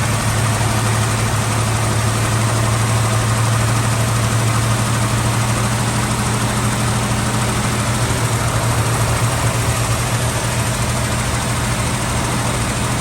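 Valiant VH Charger engine idling steadily; its low hum changes slightly about eight seconds in. The owner suspects a fuel regulator fault.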